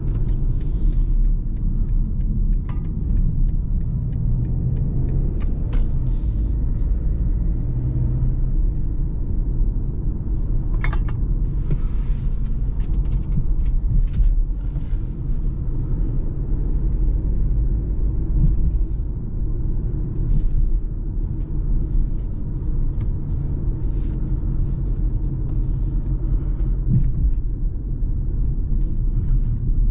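A BMW driving slowly through city streets, heard inside the cabin: a steady low rumble of engine and tyres on the road. A few short, faint clicks and knocks sound over it.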